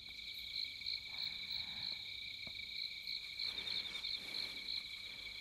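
Crickets chirping steadily in a fast, evenly pulsing high trill, a night-time ambience.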